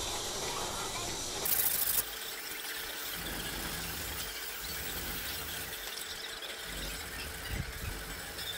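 Rusty steel blade of a Yanagiba knife being rubbed back and forth on a wet, coarse whetstone: a continuous gritty scraping with a squealing edge. One harsher, louder stroke comes about one and a half seconds in.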